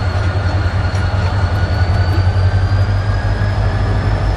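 Karachi Circular Railway passenger train's coaches rolling along the platform: a steady low rumble with a faint high squeal whose pitch rises slightly.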